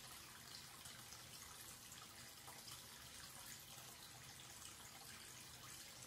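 Faint, steady stream of water from a wall-mounted tap running into a sink basin and swirling down the open drain.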